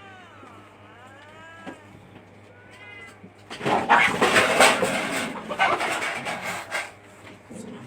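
Domestic cats meowing, with long gliding calls. About halfway in comes a loud, rough, noisy stretch lasting about three seconds.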